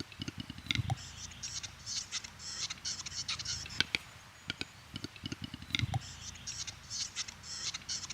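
Male capercaillie display song: a run of rapid clicks and knocks followed by a hissing, scraping phrase. The sequence repeats about every four to five seconds.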